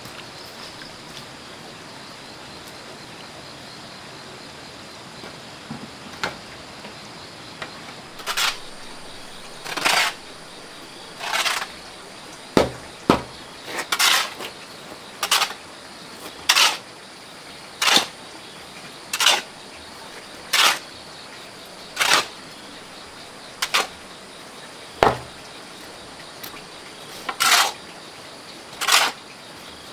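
Regular strokes of a hand tool working wood, roughly one every second and a half, beginning about eight seconds in, with a few sharper knocks among them.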